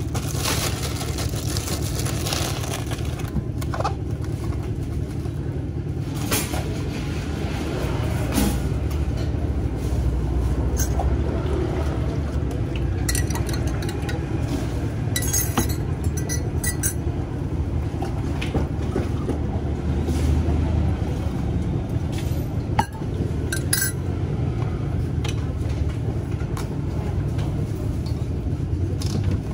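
Spoons and utensils clinking and scraping against stainless steel cups and a glass measuring jug while drinks are mixed. The clinks are scattered, with a busier run in the middle, over a steady low rumble.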